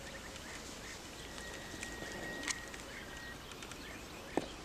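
Open-air ambience with small bird chirps every half second or so, a thin steady high tone for about two seconds in the middle, and two sharp clicks, the louder one near the end.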